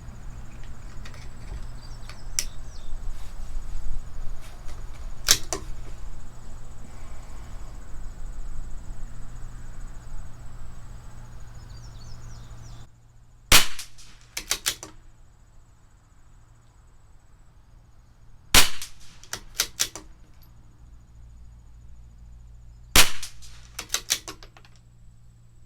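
Shots from a CZ 457 bolt-action .22 LR rifle firing Lapua Center-X rimfire ammunition: four sharp cracks spaced about four to eight seconds apart. Each of the last three is followed about a second later by a few quieter clicks.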